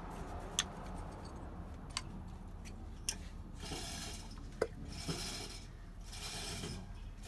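A few sharp clicks and knocks of hand tools on metal, then four short rasping, rubbing strokes about a second apart.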